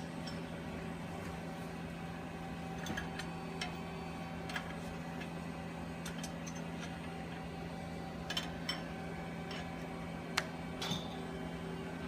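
Scattered light clicks and taps of a wrench and metal fittings being handled as the reactor's fittings are tightened, over a steady electrical hum.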